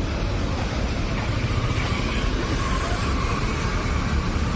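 Steady street traffic noise from cars and motorcycles passing close by, mostly a low engine and tyre rumble.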